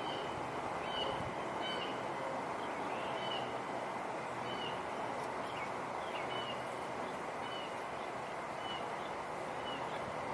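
Steady wind noise with a bird repeating a short, high chirp about once a second.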